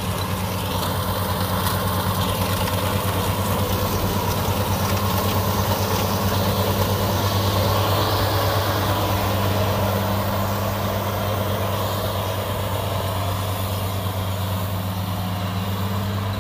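Kubota DC60 rice combine harvester running steadily as it cuts standing rice: a continuous diesel engine hum under the noise of its cutting and threshing machinery. It grows louder about halfway through as the machine passes close, then eases as it moves away.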